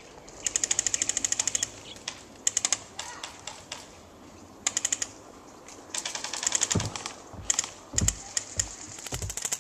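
Airsoft guns firing fully automatic bursts of rapid clicking shots, several short bursts one after another. A few dull low thumps come in the second half.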